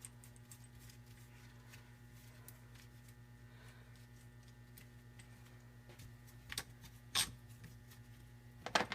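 Faint clicks and light clinks of small engine parts being handled during a small engine teardown, with three sharper clinks in the last few seconds, over a steady low electrical hum.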